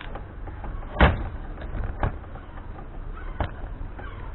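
A few separate sharp clicks and knocks of hand tools and metal parts as the reassembled quad starter motor's housing screws are tightened, the loudest about a second in and the others roughly a second apart, over a low steady background rumble.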